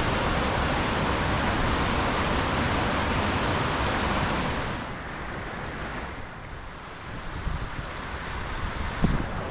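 Waterfall rushing, a steady dense sound of falling water that drops away suddenly about halfway through, leaving a quieter low rumble with a single knock near the end.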